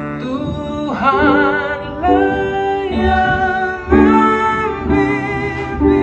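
Male voices singing a slow worship song as a duet, holding notes with a wavering vibrato, over instrumental accompaniment.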